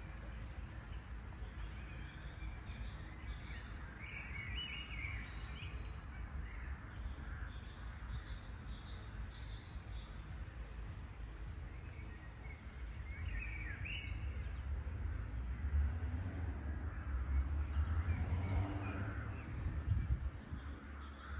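Small songbirds chirping and singing over a steady low rumble, which grows louder about three-quarters of the way through.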